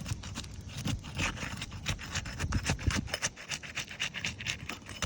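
Asphalt 3-tab shingles being lifted and worked loose to reach the nail beneath: a run of irregular scrapes and rubs, with a louder rasp near the end.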